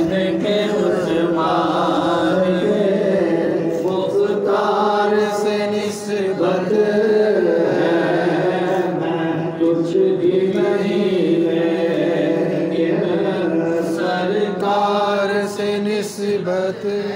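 A man's voice chanting a devotional naat into a microphone, amplified, in a slow melodic recitation with long held notes.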